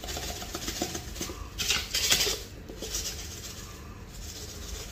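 Brown sugar being shaken out of a jar into a pot of spaghetti sauce: granules rustling in the jar and pattering onto the sauce, with light clicks of the jar, in several shakes, the loudest about two seconds in.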